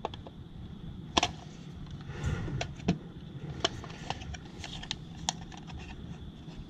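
Scattered light clicks and rattles of small parts and hand tools being handled while a weatherproof outlet cover's hinge pin is worked loose, with a brief scraping rustle about two seconds in.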